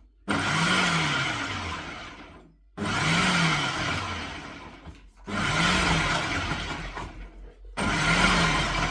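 Ninja food processor motor pulsed four times, about every two and a half seconds, chopping okra; each burst starts abruptly, spins up and runs down before the next.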